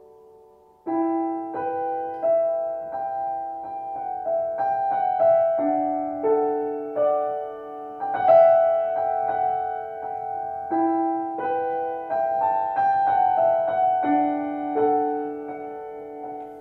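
Grand piano played solo: a slow, gentle melody of single notes and chords, starting with a firm chord about a second in after a held note dies away.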